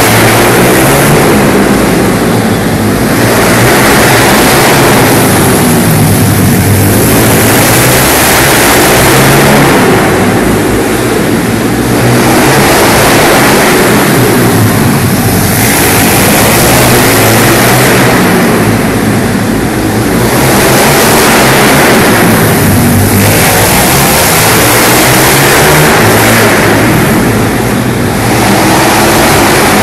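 Several pit bikes racing in a group, their small engines revving hard and easing off through the corners. The sound is loud, echoes in the hall, and swells and fades every few seconds as the pack laps past.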